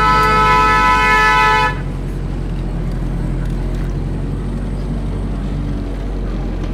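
A car horn sounding in one long, steady blast that cuts off a little under two seconds in. After it comes the steady low rumble of the car's engine and road noise, heard from inside the cabin.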